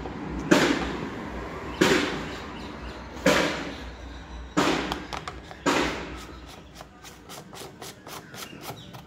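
Five sharp knocks about a second and a half apart, each fading briefly, as a new diesel filter element and the plastic cover are pushed and knocked into place on the fuel filter housing. A run of quick light clicks follows as the cover is handled.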